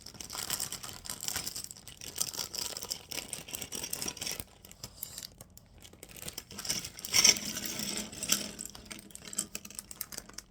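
Plastic bag of Lego pieces being torn open and crinkled, with irregular crackling that is loudest about seven seconds in.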